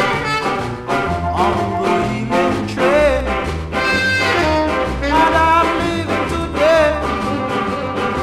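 Instrumental stretch of a 1962 Blue Beat ska record: a horn line over a bass and a shuffling beat, with no singing.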